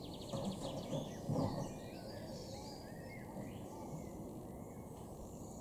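Faint outdoor ambience: a steady low background rumble with several songbirds chirping, including a rapid high ticking trill at the start. Two soft low bumps come in the first couple of seconds.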